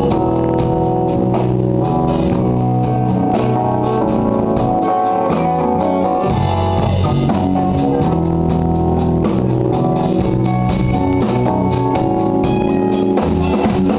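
Rock band playing live: guitar over a drum kit, loud and steady.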